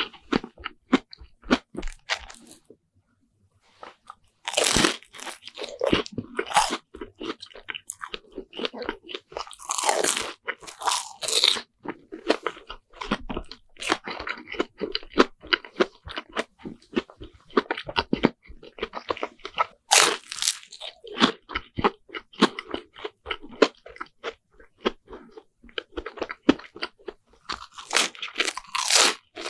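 Close-miked crunching and chewing of a deep-fried bread sandwich with a crisp fried crust. There is a short pause a few seconds in, and a louder bout of crunching every several seconds.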